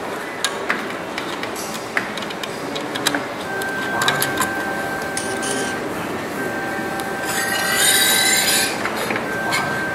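Metal cover panel on an instrument housing being worked loose by hand: scattered light clicks and taps, then a squealing scrape of metal sliding on metal lasting about a second and a half, a little after the middle.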